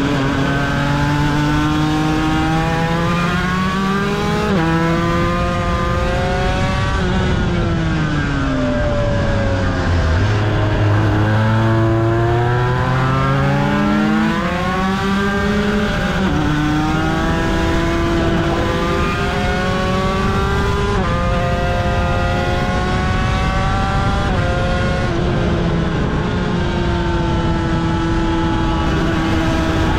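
Aprilia RS250's two-stroke V-twin racing engine at full throttle, its pitch climbing through each gear and dropping sharply at several upshifts. Around eight to eleven seconds in the revs fall away as the bike slows and downshifts, then climb again. Wind rushes over the onboard microphone.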